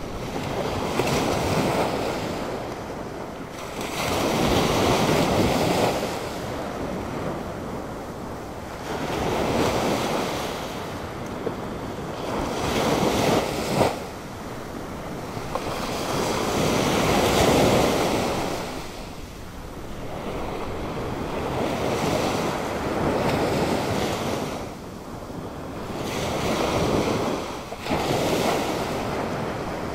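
Atlantic Ocean surf: waves breaking and washing up in repeated surges every few seconds, each swelling and fading, with wind on the microphone. The sea is stirred up by Hurricane Olga.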